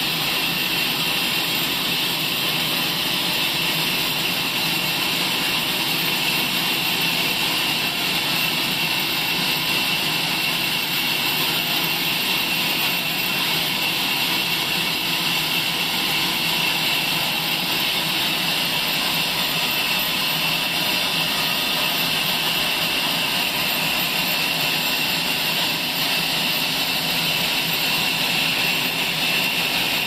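Sawmill band saw running and cutting lengthwise through a log: a loud, steady, unchanging noise.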